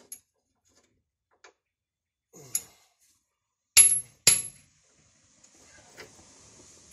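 Hammer blows on the steel leaf spring mount of a Ford F-250. A light tap comes about two and a half seconds in, then two loud, ringing strikes half a second apart, and a faint knock near the end.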